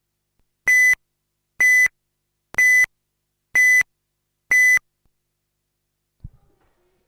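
Race timing system's start countdown: five identical short electronic beeps, evenly spaced about a second apart, signalling the race start sequence. A faint low thump follows near the end.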